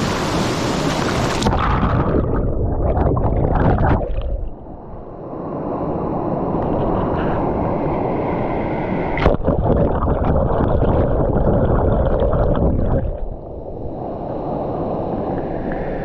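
Mountain stream water rushing and gurgling close to the microphone, dipping briefly twice, with a single sharp knock about nine seconds in.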